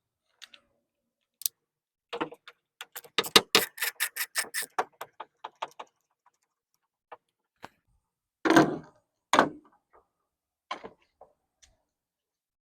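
A run of quick sharp clicks lasting about three seconds, then two heavier knocks and a few small clicks: hand work on a Nissan 350Z door-handle mechanism and its parts.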